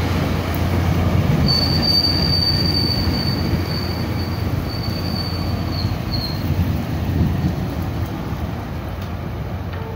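Tri-Rail double-deck commuter train rolling past, a steady low rumble from the wheels and running gear, with a high, steady wheel squeal from about a second and a half in until about six and a half seconds in.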